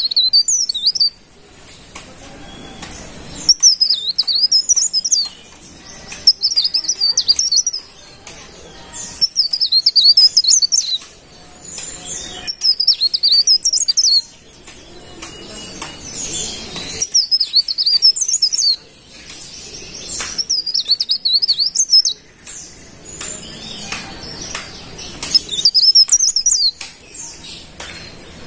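A cikrak daun leaf warbler singing: about eight rapid, high-pitched warbling phrases, each one to two seconds long, repeated every few seconds with short pauses between.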